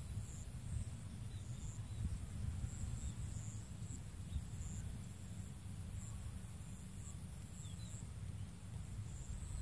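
Insects chirping: a steady high buzz with short high chirps repeating about every second, over a steady low rumble.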